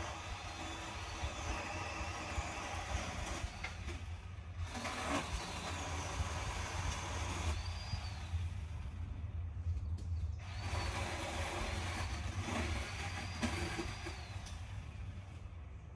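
Ryobi 18V ONE+ battery chainsaw cutting through branches in several bursts of a few seconds each, the motor whine rising and falling as the trigger is squeezed and released, with short pauses between cuts. A steady low rumble runs underneath.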